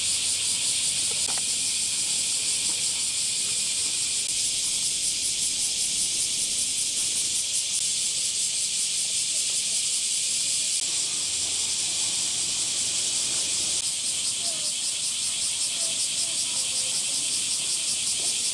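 Dense summer cicada chorus: a steady high buzz with a fast, even pulsing texture.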